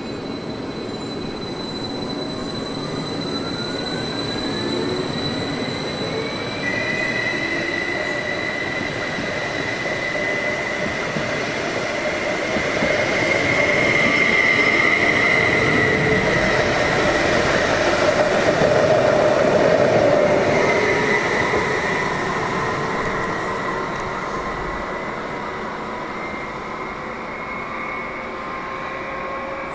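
Electric multiple-unit trains running: a rising electric whine as one pulls away, then a steady high whine with wheel-on-rail rolling noise as another passes close, loudest about halfway through and fading afterwards.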